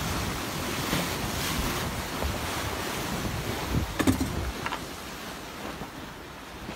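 Water rushing and splashing along the hull of a NEO 350 sailing yacht under way, with wind buffeting the microphone. A sharp knock about four seconds in, after which the rush is a little quieter.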